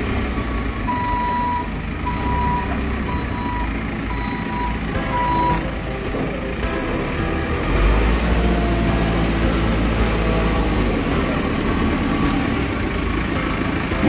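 JCB 3CX Eco backhoe loader's diesel engine running, with its reversing alarm beeping about six times in the first five seconds. About eight seconds in the engine revs up, and a high whine rises, holds, then falls away as the revs ease.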